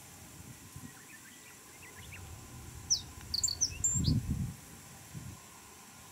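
Male Japanese reed bunting singing one short phrase of sharp, high notes about halfway through, with a low rumble underneath near its end.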